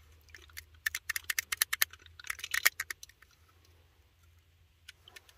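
Resealable zip-lock coffee bag being pressed shut: rapid crackling clicks in two runs, around one second and two and a half seconds in.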